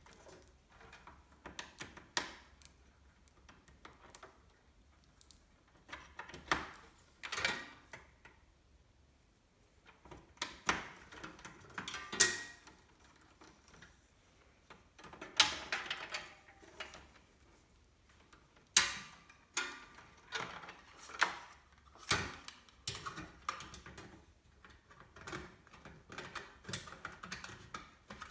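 Irregular clicks, taps and knocks of computer hardware being handled and fitted together during a PC build, coming in clusters with short pauses between them.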